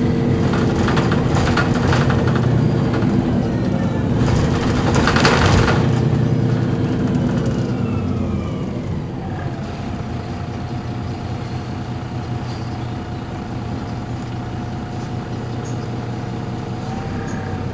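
MAN NL223 city bus's diesel engine idling, with a short burst of air hiss about five seconds in; the running settles a little quieter after about eight seconds.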